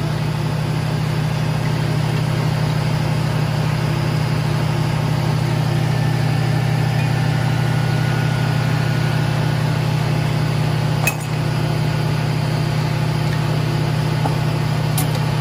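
Steady low mechanical hum of a running machine, with a single light click about eleven seconds in.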